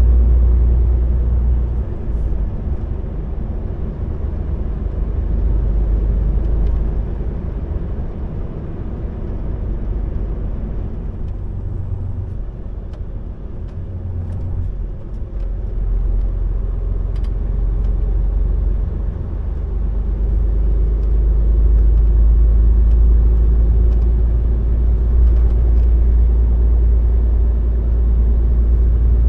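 Low, steady rumble of a vehicle on the road, a deep drone that eases off through the middle and grows louder again in the last third.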